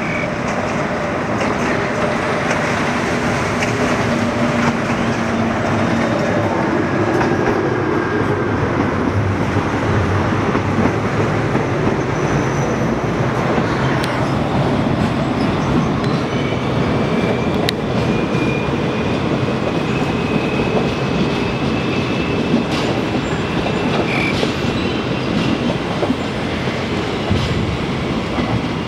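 Diesel locomotive hauling a passenger train past close by, with the rumble and clack of wheels over the rails. A thin wheel squeal comes in during the second half as the carriages roll through the junction.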